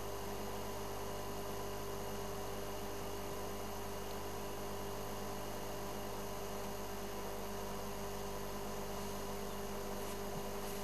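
A steady, unchanging hum made of several fixed tones over a hiss, with no distinct events.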